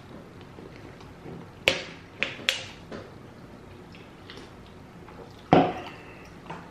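A drink can being handled at a table. A few sharp clicks come about two seconds in as it is picked up and lifted to drink. A louder knock comes near the end as it is set back down.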